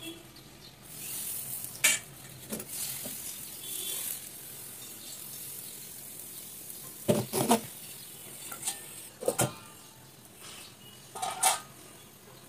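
Thin rice-flour batter sizzling with a high hiss on a hot clay khola pan, starting about a second in and fading after a few seconds. Several sharp clunks of cookware against the clay pan follow, loudest around the middle and near the end.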